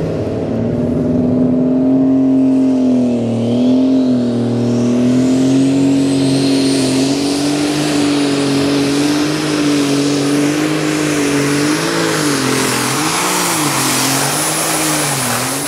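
Super Stock pulling tractor's turbocharged diesel engine running hard through a pull against the brake sled, with a high whistle rising in pitch over the first several seconds. Near the end the engine note swings up and down several times.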